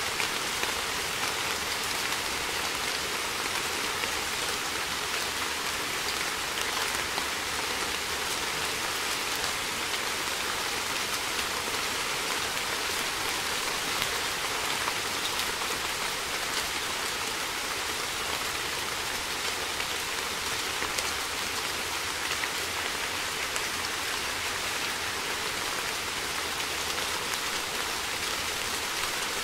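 Steady rain falling: an even hiss with many small drop ticks, at a constant level.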